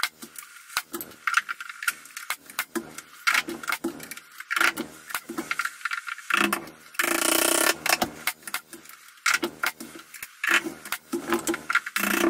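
Repeated light knocks, taps and clatter of wooden stair spindles being handled and set into place under a handrail, with a short noisy burst about seven seconds in.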